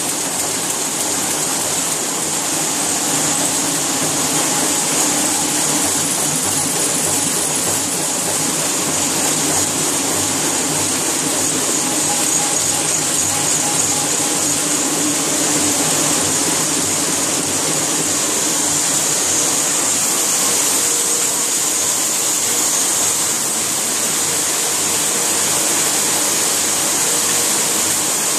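Sheet-fed offset printing press running: a steady, even machine noise with a strong high hiss.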